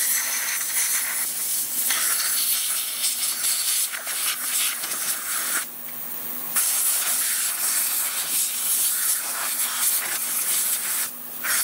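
Handheld compressed-air blow gun hissing in long blasts, blowing the cleaning solution off freshly ultrasonic-cleaned gun parts to dry them. The air stops for about a second around the middle and cuts off again briefly near the end.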